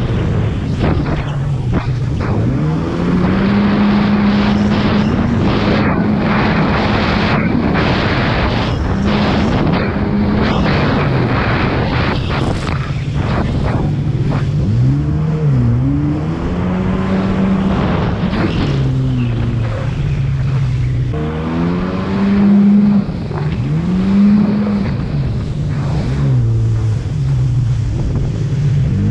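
Jet ski engine revving up and down again and again as it is throttled through turns, over a steady rush of water spray and wind on the microphone.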